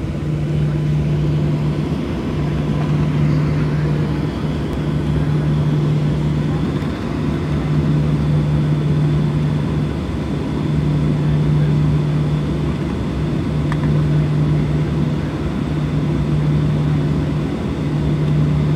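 Steady cabin drone inside a Boeing 737-800 taxiing on its two CFM56 turbofan engines, with a low hum that breaks off briefly every couple of seconds.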